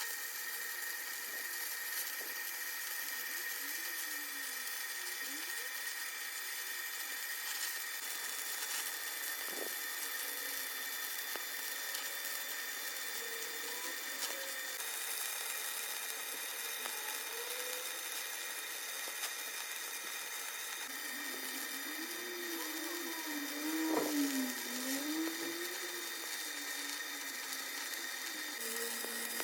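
Stick (arc) welding arc hissing and crackling steadily, with a faint high whine held underneath.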